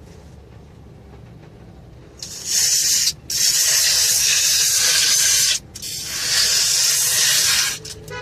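Aerosol can of foaming air-conditioner coil cleaner spraying in three hissing bursts, the longest about two seconds, after a low hum at the start.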